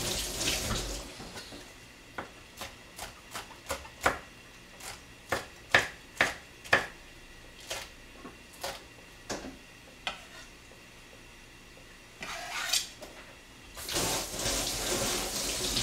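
Kitchen knife slicing a green chili pepper on a plastic cutting board: a string of irregular sharp knocks. Near the end a kitchen tap is turned on and water runs into the sink.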